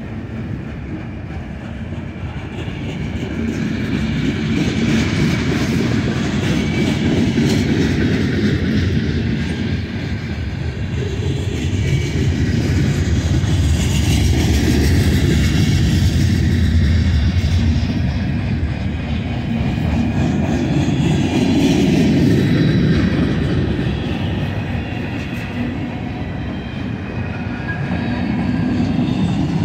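Freight cars of a mixed manifest train rolling past: steel wheels rumbling and clicking over the rail joints, the rumble swelling and easing as different cars go by.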